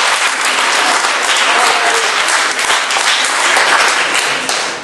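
Audience applauding steadily in a hall after a comedy punchline, the clapping dying down near the end.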